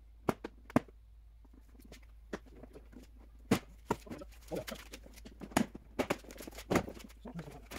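Irregular sharp plastic clicks and knocks as the front bumper cover of a 2009 Kia Ceed is popped out of its clips at the sides and handled.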